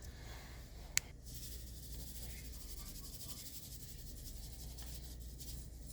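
A sharp click about a second in, then a steady soft high hiss of dry seasoning being shaken onto raw chicken wings.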